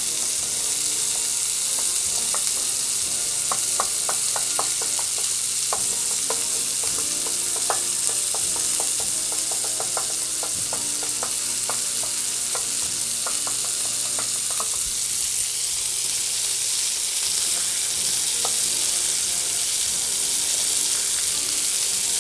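Bacon-and-beef burger patties sizzling steadily in a hot frying pan. Over the first two-thirds there is a run of small sharp clicks and pops.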